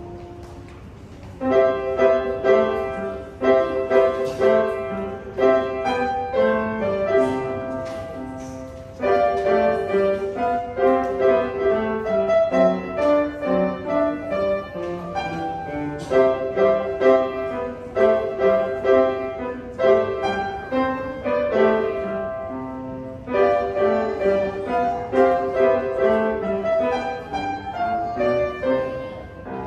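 Grand piano played four hands as a duet, a Christmas song arrangement, in phrases of several seconds separated by brief pauses, ending just before the close.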